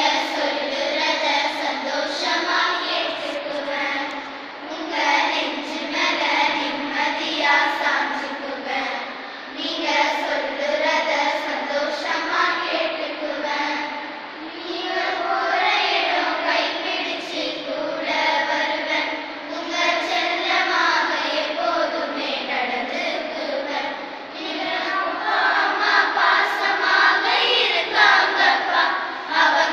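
A group of girls singing a hymn together, voices held on long notes with short breaks between lines.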